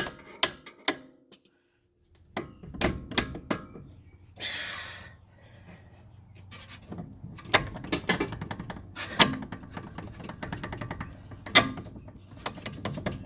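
A hammer tapping a control-arm mounting bolt out of a BMW X5 E70's suspension: a string of irregular, sharp metal knocks, pausing briefly near the start, with a short rushing noise about four seconds in.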